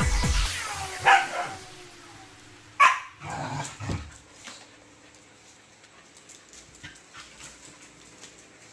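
Dogs tussling: sharp barks and yelps about a second in and again near three seconds, then only faint scattered clicks. Background music with a thumping beat ends about half a second in.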